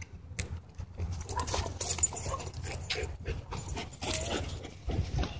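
A Rottweiler puppy and a German Shorthaired Pointer play-fighting at close range: panting and short dog vocalisations over irregular scuffling.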